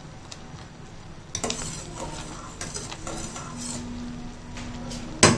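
A steel spoon stirring thick, boiling tomato ketchup in a stainless steel saucepan, scraping and knocking against the pan. Near the end the spoon strikes the pan once with a loud clank.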